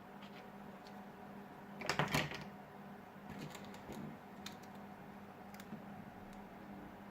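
Quick cluster of small clicks and taps about two seconds in, then a few scattered light ticks, from tools and small parts being handled while working on a smartphone, over a steady low hum.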